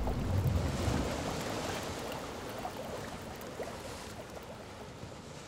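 Rushing, watery noise like a stream or surf, fading steadily away: a water sound effect under an animated production-company logo.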